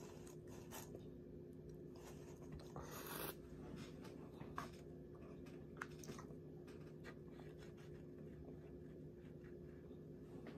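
Quiet chewing of barbecue turkey tips and fries, with scattered clicks and scrapes of a plastic fork and fingers against a foam takeout container and a brief rustle about three seconds in, over a steady hum.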